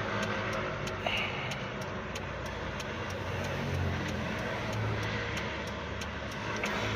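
Car engine idling steadily. The ECU is logging a misfire on cylinder 1.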